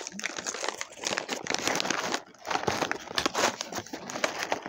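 Crinkling and rustling of an MRE cookie pouch's plastic packaging as it is handled, with a brief lull about halfway through.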